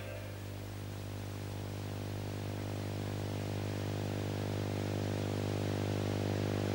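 A steady, low sustained drone in the soundtrack music, one held pitch with many overtones, slowly swelling louder.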